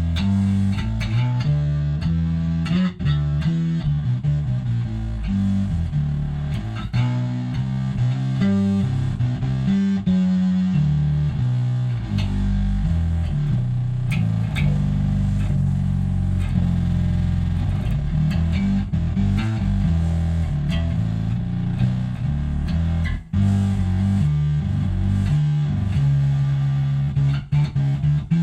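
Electric bass played through a Big John's Electronics five-knob Mammoth fuzz (a clone of the Z.Vex Woolly Mammoth) combined with an Electro-Harmonix Bass Mono Synth, giving a fuzzy synth-bass tone. It plays a run of changing notes with heavy low end, turning choppier with short notes near the end.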